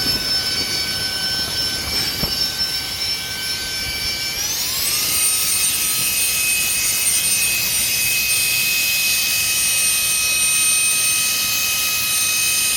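A small electric air pump running with a steady high whine, stepping up to a higher pitch about four seconds in and holding there.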